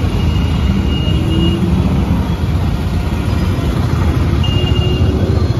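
Royal Enfield motorcycle engine running while riding through city traffic, a steady low rumble with road noise; two short high beeps sound, about a second in and again near the end.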